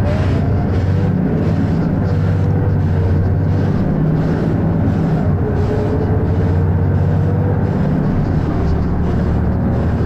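Volvo B7RLE single-deck bus's diesel engine pulling under way, heard from inside the passenger saloon: a steady low drone with a faint whine that rises and falls, the drone easing off briefly a few times.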